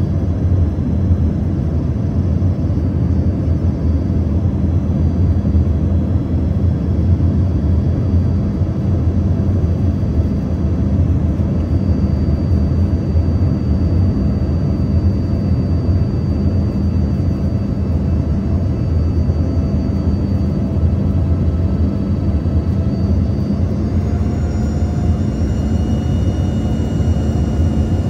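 Cabin noise inside an Embraer ERJ-145 in flight: a steady deep rumble of airflow and its rear-mounted Rolls-Royce AE 3007 turbofans, with thin engine whines over it. Near the end the whines rise slightly in pitch as the engine thrust changes.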